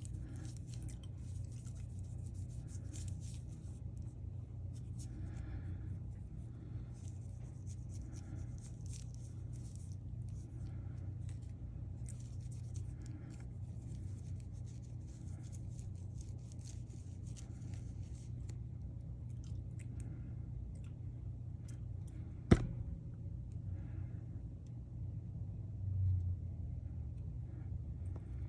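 Soft, intermittent rubbing and scraping as an Apple Watch display is cleaned of dust and leftover glue, over a steady low hum. One sharp click near the end.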